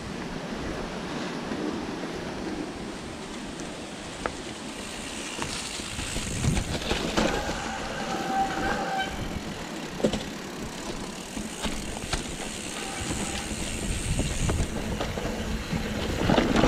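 Mountain bike riding down a dirt trail: the chain and frame rattle and clatter over bumps with sharp knocks now and then, over rumbling wind on the microphone. A brief squeal about halfway through.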